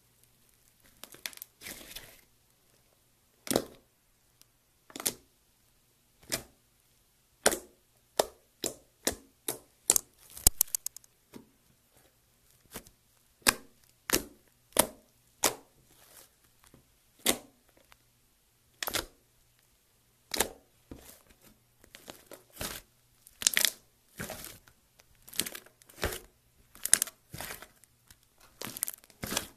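Purple slime squeezed and pressed by hand, giving sharp pops and crackles at irregular intervals, now singly, now several in quick succession.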